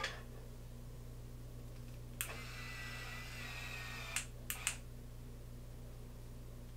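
Beachwaver B1 rotating curling iron: a click about two seconds in, then the barrel's motor whirs for about two seconds as it turns and winds the hair. It stops with a click, followed by two more quick clicks.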